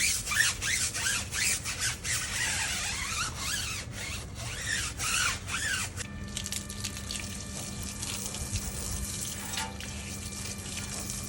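Stiff brush scrubbing a car tyre and alloy wheel with car shampoo, in quick rubbing strokes with squeaks of bristles on rubber. About six seconds in the scrubbing gives way to a steadier hiss with a low hum.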